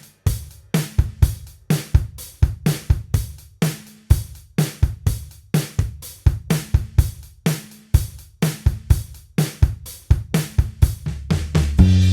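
Solo drum-kit-style groove: kick, snare and hi-hat-like hits at an even rhythm of about four a second, with short low pitched notes between them. Right at the end a sustained bass line and chord come in.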